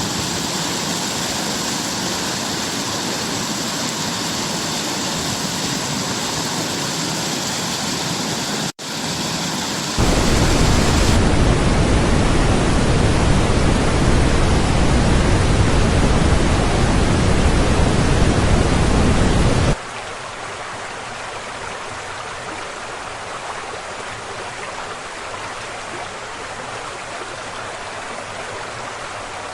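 Rushing, splashing water of a waterfall, spliced from separate recordings: a hissing stretch, a brief dropout, then a louder, deeper roar for about ten seconds that cuts off suddenly into a quieter rush.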